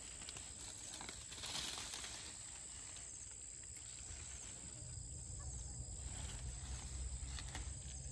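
Leaves rustling and vine stems snapping as ivy gourd (Coccinia indica) leaves and shoots are picked by hand, with a steady high tone behind it and a low rumble coming in about halfway through.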